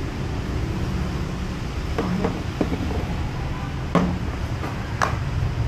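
Short clinks and knocks of tableware being handled on a restaurant table, about five of them from two seconds in, the loudest two near the end, over a steady low background rumble.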